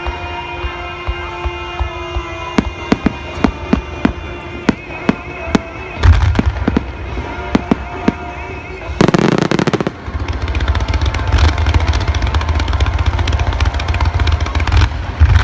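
Fireworks going off: many sharp pops and crackles with deep booms from bursting shells, a loud bang about six seconds in and a dense rushing crackle for about a second a few seconds later, over music with sustained tones.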